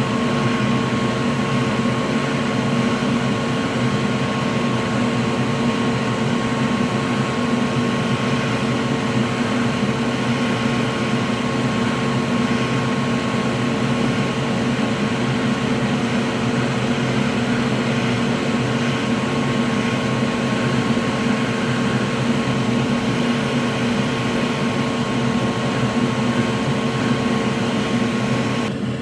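Steady whirring drone of an electric fan, with two steady whining tones over a low hum; it runs unchanged until it shifts and drops near the end.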